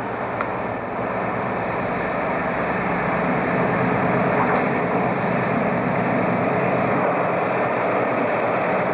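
Class 60 diesel locomotive running with a long train of loaded hopper wagons: a steady engine drone and rumble that grows louder over the first few seconds as it approaches and passes beneath, then holds. A brief click just after the start.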